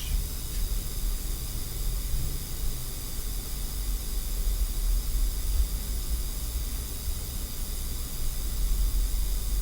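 Steady hiss with a low electrical hum underneath and no distinct events: the recording's background noise.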